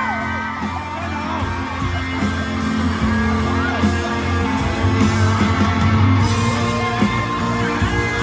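Live band music: an instrumental passage with electric guitar, bass and drums, sustained notes over a steady beat, with audience members yelling and whooping over it.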